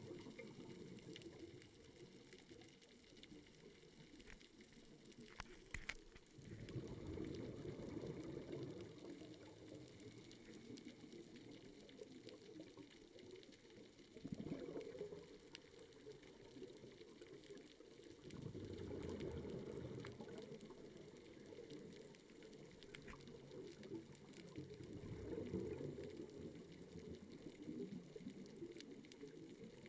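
Scuba regulator exhaust bubbles heard underwater: a low bubbling rumble that surges with each exhalation, roughly every five to six seconds, with quieter stretches of inhaling in between.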